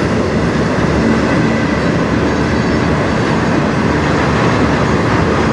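Autorack cars of a freight train rolling past on the track: a steady, even noise of steel wheels on rail, with a faint steady high tone running through it.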